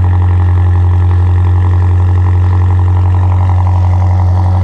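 BMW M5's twin-turbo V8 idling through its quad exhaust, a steady low drone that holds an even pitch throughout.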